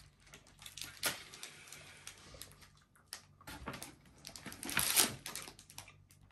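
Sweet packaging and wrappers being handled and opened: scattered crinkles and clicks, with a louder crinkle about a second in and another around five seconds in.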